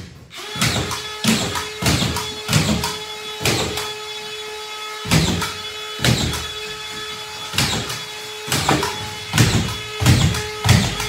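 Collated drywall screw gun running steadily with a constant whine, driving screws into a ceiling drywall sheet one after another. Each screw gives a short loud burst, roughly one a second.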